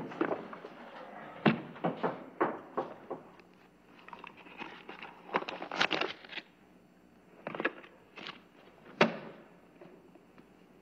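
Scattered knocks and footsteps on a wooden floor, then the handling of a leather-bound book, with a brief tearing, crackling sound about six seconds in as its binding is pulled at.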